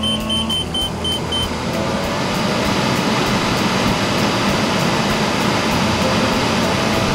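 Roof-mounted evaporative air cooler's fans speeding up through their speed settings: a rush of moving air with a faint rising whine that grows louder over the first three seconds, then runs steady. Quick beeps from the control panel, about four a second, sound during the first second and a half as the speed button is pressed.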